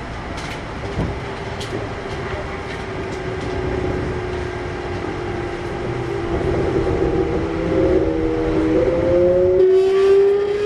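Kintetsu 1021 series electric train accelerating: its Hitachi GTO VVVF inverter and traction motors give a whine of several tones that rises slowly in pitch, stepping up twice near the end, over running rumble that grows louder.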